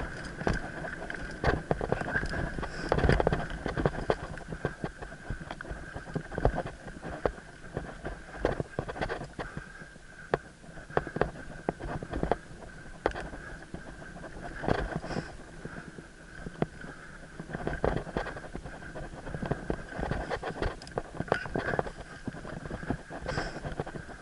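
Mountain bike rolling fast over a dirt forest trail, heard from a helmet camera: tyre noise with frequent sharp rattles and knocks as the bike jolts over the ground. A faint steady high tone runs underneath.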